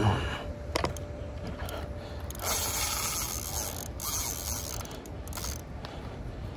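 Spinning reel's mechanism clicking and whirring as it is worked against a hooked catfish snagged in submerged trees, with scattered knocks from handling the rod over a steady low rumble.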